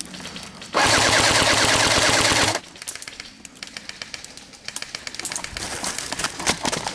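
JG G3 electric airsoft rifle (AEG) firing one loud full-auto burst of about two seconds, a second or so in, followed by fainter scattered clicks of airsoft fire.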